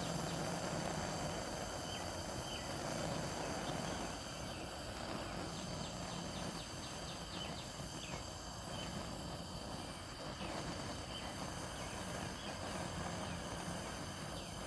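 Steady hiss of a small handheld torch flame burning carbon deposits off a string trimmer's spark arrestor screen, with insects chirping in the background.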